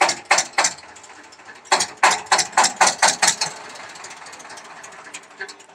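Single-cylinder diesel engine on a concrete mixer being hand-cranked. It gives a run of loud, sharp chuffs that speed up and then stop, followed by a lower whir that fades away.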